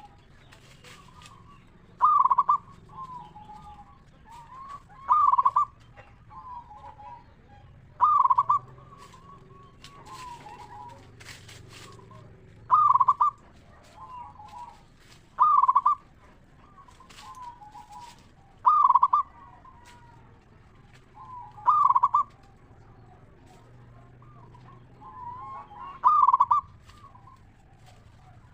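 Zebra dove (perkutut) singing: a loud cooing note followed by a few softer rolling coos, repeated eight times about every three seconds.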